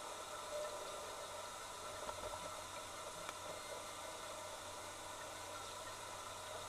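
Steady underwater hiss with a low hum and a few faint clicks, picked up by a camera submerged in a pond.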